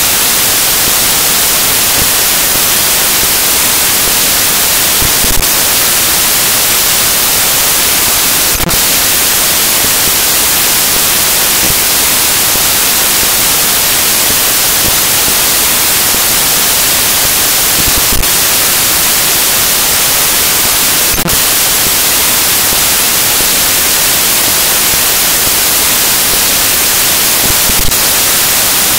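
Loud, steady static hiss on the audio track, strongest in the high frequencies, with a few faint clicks scattered through it.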